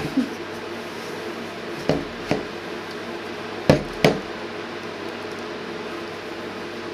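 Hands squeezing and mixing wet soda bread dough in a plastic mixing bowl, with five sharp knocks; the loudest two come close together about four seconds in.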